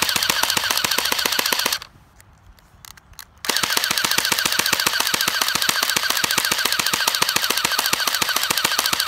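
Electric airsoft HK MP7 firing full auto in two bursts, a rapid even stream of clacks from the gearbox cycling; the first burst stops about two seconds in and the second starts about a second and a half later. The rate of fire is low, which the owner puts down to a dying battery.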